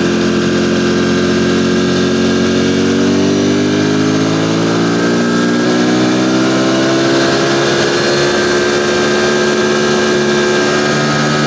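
Ducati Panigale V4's V4 engine running under load on the move, its pitch climbing slowly and steadily as the bike gains speed.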